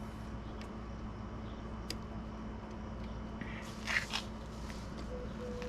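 Light handling noises of small parts with a brief scraping clatter about four seconds in, over a steady low background rumble.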